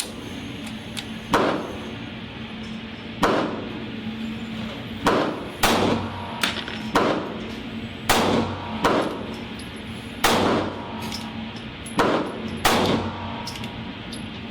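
9mm pistol shots, a Kel-Tec PF9 firing Winchester White Box ammunition, about ten sharp reports at irregular spacing roughly one to two seconds apart, each with a short ringing echo.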